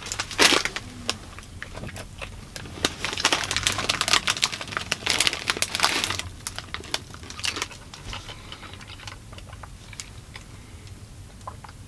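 Doritos crisp packet crinkling and rustling as it is handled and folded, in repeated bursts over the first seven seconds or so, then only a few scattered crackles.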